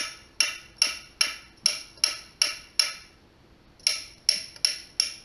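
Sharp metallic taps of a thin metal rod, used in place of a brass drift, knocking against the small metal parts of a Willcox & Gibbs sewing machine's automatic tension unit to drive them out. The taps come at about two or three a second, each ringing briefly, with a short pause about three seconds in.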